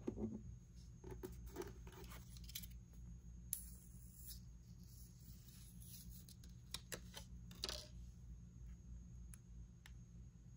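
Faint handling sounds of small objects: scattered light taps and clicks with a couple of brief plastic or paper rustles, over a low steady hum.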